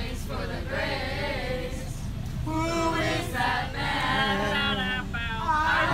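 A group of young voices singing together, over the steady low rumble of a coach.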